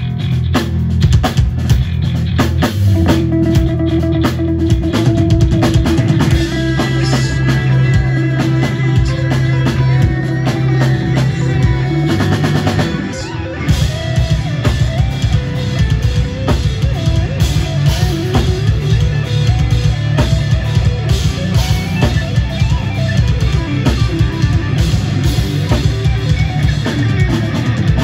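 Live band of electric guitars, bass guitar and drum kit playing progressive metal, the drums busy throughout. About halfway through the sound drops briefly before the full band comes back in.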